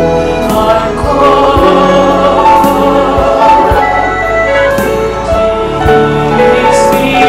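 Gospel worship song sung by a choir, with violins playing along over a steady beat.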